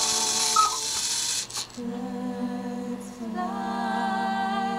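Cuckoo clock whistle pipes, blown by their bellows, sounding steady tones that stop, a click about one and a half seconds in, then the tones again.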